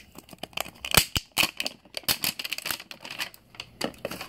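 Crinkly foil wrapper of a Ready2Robot blind capsule being torn and peeled off by hand, giving an irregular run of sharp crackles and snaps, the loudest about a second in.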